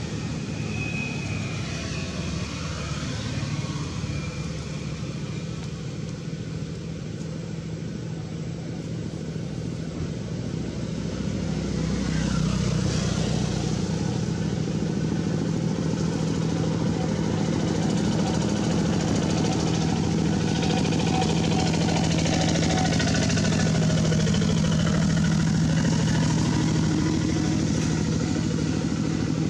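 A motor engine running steadily with an even, level hum, growing louder about twelve seconds in.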